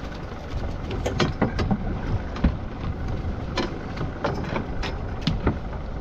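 Steady low rumble on board a small fishing boat at sea, with a scattering of sharp knocks and clicks through the middle of the stretch.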